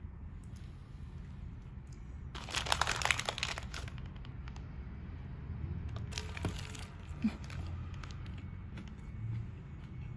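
Paper sandwich wrapper rustling and crinkling as it is folded around a toast sandwich by hand: a burst of crinkling about two seconds in lasting over a second, a shorter one around six seconds, and light handling clicks between.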